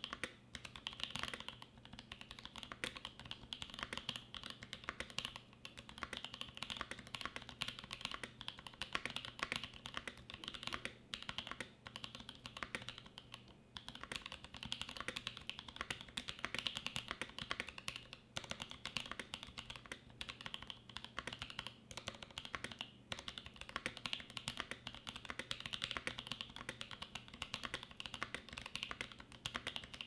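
Continuous typing on a Primus75 mechanical keyboard with lubed Holy Boba tactile franken switches, an aluminium plate with gaskets and GMK ABS keycaps: a dense, fast stream of keystroke clacks with a short lull about halfway through.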